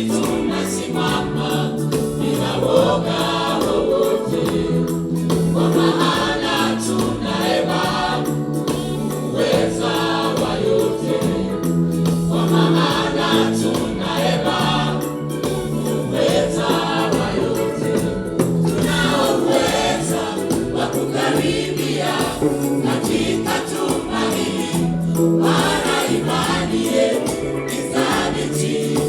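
A church choir singing a gospel song in parts over steady low bass notes.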